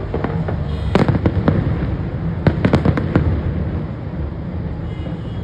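Fireworks display going off: a sharp bang about a second in, a few more after it, then a quick run of five or six bangs and cracks in the middle, over a steady low rumble.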